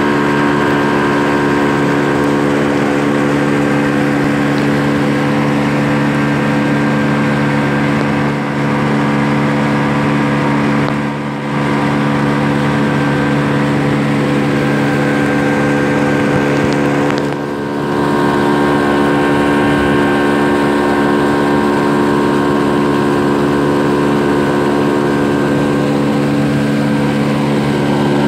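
Motorboat under way: its engine runs steadily at cruising speed over the rush of water along the hull and wake, with a couple of brief dips in level.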